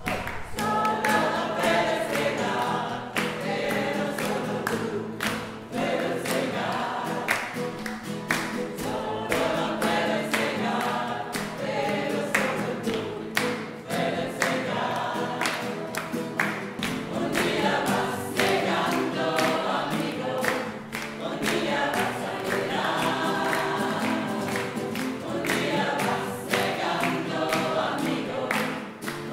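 Music: a group of voices singing together in chorus over a steady, sharply struck percussive beat.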